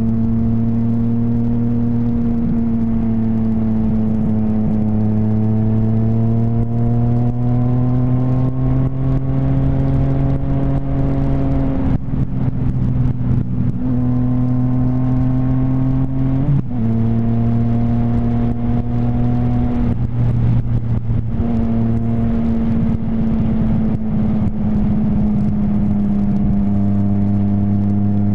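Sport motorcycle engine running at speed, heard from the rider's seat: a steady engine note that rises slowly as it pulls, dips and drops back a few times as the throttle eases and gears change, with a steady rush of wind.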